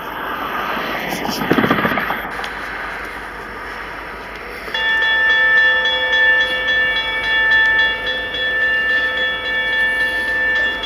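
A CN freight locomotive's horn sounding one long steady chord of several tones, starting about five seconds in and holding to the end. Before it, a rustling noise.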